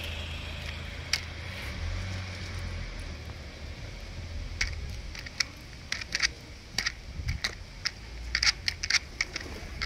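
Pigeons pecking dry cat-food kibble in a plastic tub: sharp, irregular clicks and rattles of beak on pellets and plastic. The clicks are sparse at first and come thick and fast near the end, over a steady low rumble.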